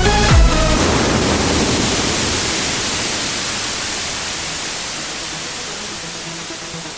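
Electronic dance music track: the beat stops under a second in and leaves a hiss of white noise that fades slowly away, a noise sweep in the track's breakdown.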